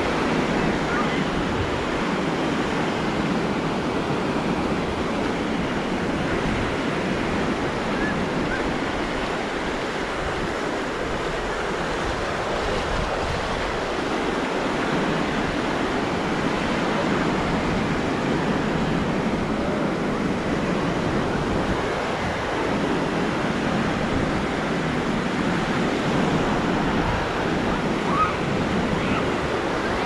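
Atlantic surf washing up a sandy beach: a steady rushing noise that swells and eases slightly, with some wind on the microphone.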